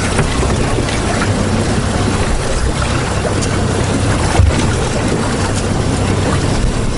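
Wind buffeting the microphone and water slapping along a drifting fishing boat's hull, with a low steady hum under it. One brief knock about four and a half seconds in.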